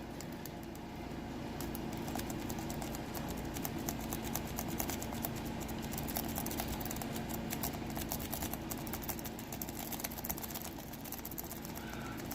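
A lock pick raking in and out of a Best pin tumbler lock: a dense run of fast, light metallic clicks and scratches as the pins are scrubbed, starting about a second and a half in.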